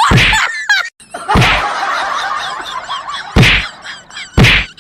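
Four loud, sudden thumps, about a second or two apart, with a noisy rustle between them.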